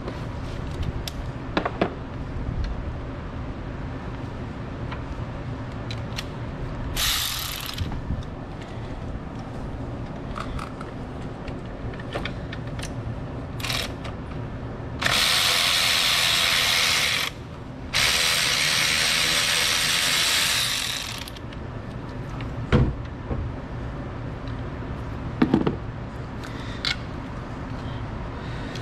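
Cordless electric ratchet spinning 10 mm bolts out of an alternator mount: a short run about seven seconds in, a brief blip, then two longer runs of about two and three seconds. A couple of sharp metal knocks follow near the end.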